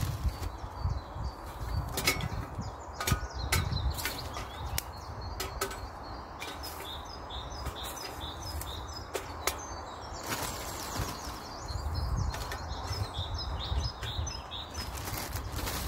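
Dry twigs being handled and dropped into a small folding metal wood-burning stove, with irregular clicks and knocks of wood on wood and metal, and a plastic carrier bag rustling.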